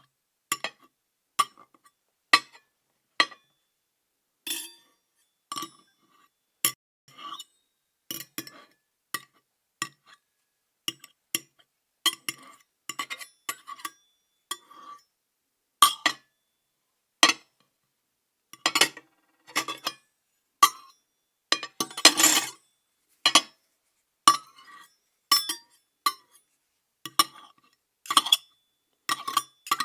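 Dishes, cutlery and glasses clinking against each other in an irregular series of sharp clinks, with a longer clatter about two-thirds of the way through.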